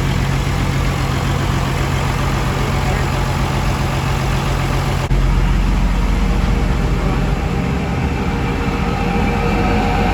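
Engine running steadily under load, driving a pre-war DC dynamo welding plant through the power take-off. The sound changes abruptly about halfway through.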